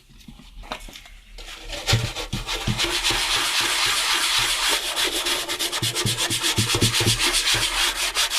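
Scrubbing the plastic cabinet of a radio cassette recorder with degreaser to strip paint. The quick, even back-and-forth strokes start about a second and a half in and carry on steadily.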